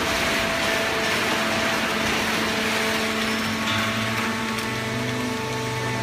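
Fully automatic horizontal hydraulic baling press for waste cardboard running: a steady machine hum from its motors and hydraulic pump over a broad hiss, with a deeper hum coming in about four seconds in.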